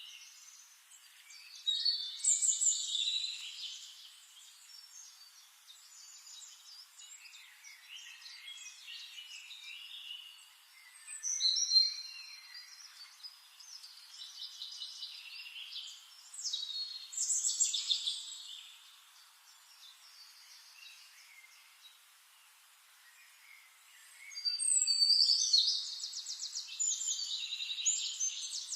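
Songbirds singing: several bursts of rapid, high-pitched chirping song, with softer chirps between them. The last burst, starting near the end, is the longest and loudest.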